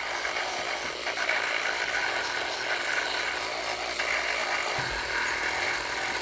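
Handheld rotary tool running at a steady speed, its bit grinding against a black 1/12-scale model motorcycle tyre: a steady high whine over a grinding noise.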